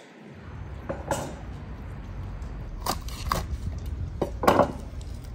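Whole raw chickens and wooden boards being handled on a wooden table: several sharp knocks and clatters, the loudest about four and a half seconds in, over a low steady rumble.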